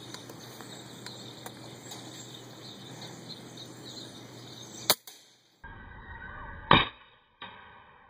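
Two sharp cracks from a .177 FX Impact Mk1 PCP air rifle firing, about two seconds apart, the second the louder. A fainter click follows the second shot.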